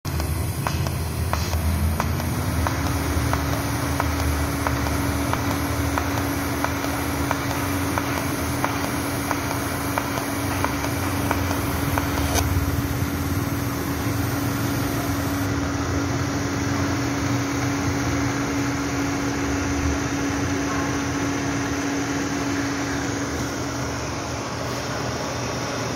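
Pulsed TIG welding arc from a Miller Maxstar 350 inverter welder, heard as steady noise with a regular ticking from the pulses. A steady hum comes in about two seconds in. The ticking stops about halfway through while the hum carries on.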